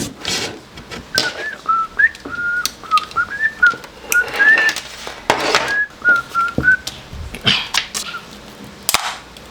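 A person whistling a wandering tune, note by note, for most of the stretch. Sharp clicks, knocks and short scraping noises come in between, from handling the power adapter and tools.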